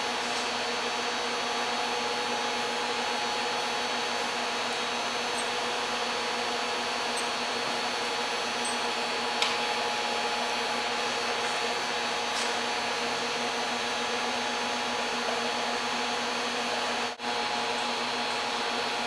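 A 10 kW resonant-lock induction heater running under load while it heats an iron billet: a steady hum with a few fixed tones over a hiss. There is a short tick about nine seconds in and a momentary drop in the sound near the end.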